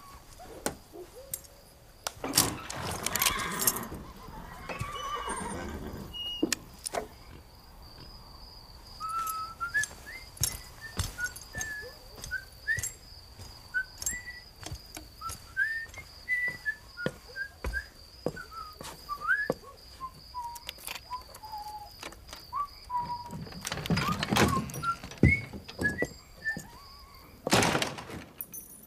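Horse sounds, a few loud breathy blasts and whinnies, with a steady high insect trill, scattered short chirps and light footfalls in the quieter stretch between them.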